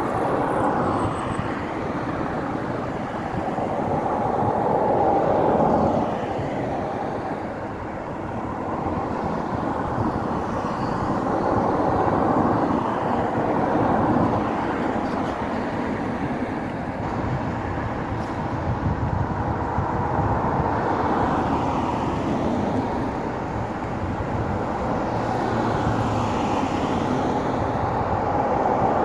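Cars passing on a wet road, the hiss of tyres on wet asphalt swelling and fading as each one goes by, several times over.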